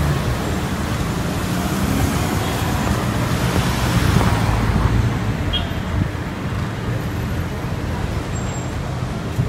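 City street traffic: car engines and tyres in a steady rumble.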